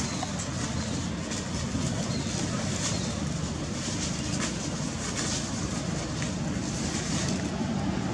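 A steady low rumble of outdoor background noise, with faint short crackles that fit dry leaves stirred underfoot.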